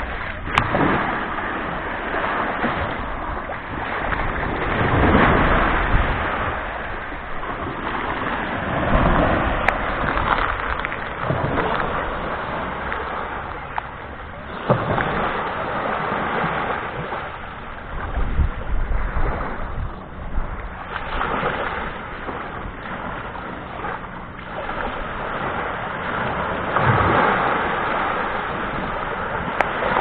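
Small sea waves breaking and washing up over a shell-and-sand beach, the surf swelling and easing every few seconds.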